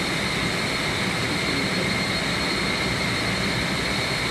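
Steady, loud machinery noise of a chiller plant room: a constant hum and hiss with a steady high-pitched whine, unchanging throughout.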